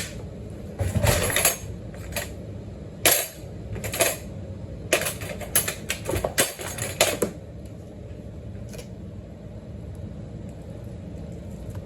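Light clicks and clattering of food containers and utensils being handled as food is set out on a platter, a scattered run of sharp knocks through the first seven seconds, then only a steady low background noise.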